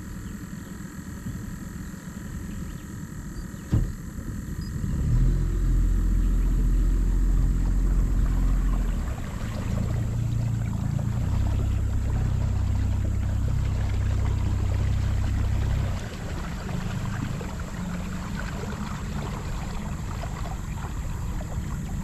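Boat motor running at low speed, a low hum that comes up about five seconds in, shifts pitch a couple of times and eases off about sixteen seconds in. A single sharp knock comes just before it starts.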